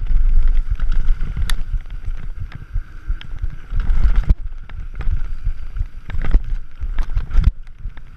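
Scott Gambler downhill mountain bike running fast down a rough dirt and rock trail: wind rushing over the microphone with a constant low rumble, and frequent sharp knocks and rattles as the bike hits rocks and bumps.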